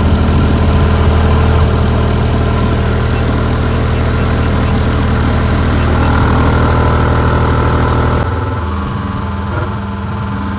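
12-inch fiberglass-cone subwoofer playing a loud, steady low test tone at about 1500 watts RMS during a sustained power-handling test, with many overtones reaching well up. About eight seconds in the level drops a little and the upper overtones thin out.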